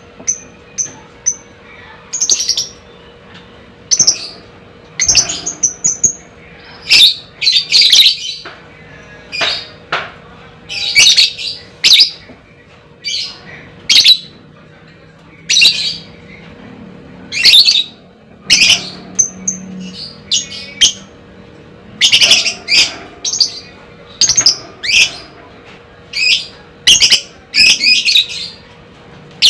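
Lovebird giving loud, shrill chirps and squawks, short calls repeated irregularly about once a second, sometimes in quick clusters of several.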